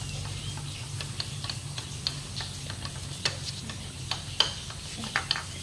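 Light, irregular clicks and crackles of eating at a table: crisp fried pancake being torn by hand and chopsticks against bowls and plates, over a steady low hum.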